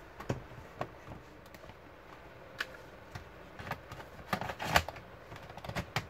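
Plastic bottom case of a Toshiba Satellite C55 laptop being pressed onto the chassis by hand, its clips snapping into place in a series of irregular clicks and taps, most of them about four to five seconds in.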